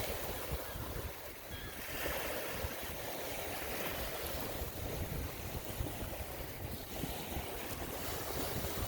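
Bay water washing and lapping in a steady rush that swells and eases, with wind buffeting the microphone in a low rumble.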